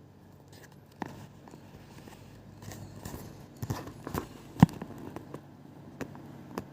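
A low steady hum with a handful of light, sharp clicks and knocks scattered through it, the loudest about two-thirds of the way in.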